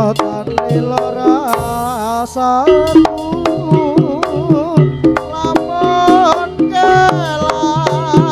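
Live jaranan gamelan music: kendang drums and struck gongs beat a fast, steady rhythm under a wavering, sliding high melody line.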